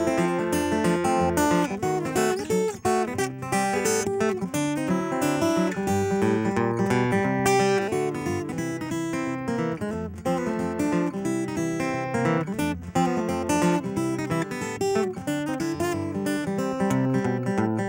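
Solo acoustic guitar played fingerstyle with a thumb pick: a quick, steady run of plucked melody notes over bass notes.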